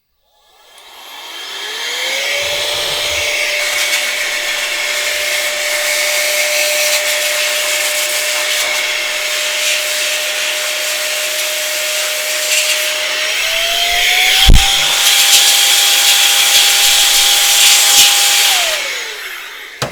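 Small electric air blower blowing out a floppy disk drive: its motor spins up over a second or two into a steady whine over a rush of air, rises a little in pitch about two-thirds of the way through, then winds down near the end. A single sharp knock about fourteen seconds in.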